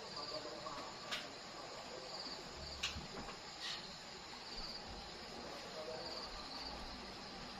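Insects chirping in short pulsed trills that repeat every second or two over a steady outdoor hiss, with a few sharp clicks, the loudest a little under three seconds in.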